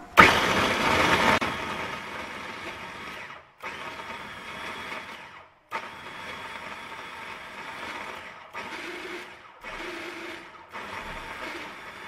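Mondial Premium mini food processor running in pulses, its blade chopping onion and garlic into a paste. It is loudest for the first second or so as the chunks are hit, then runs more steadily, cut off briefly several times.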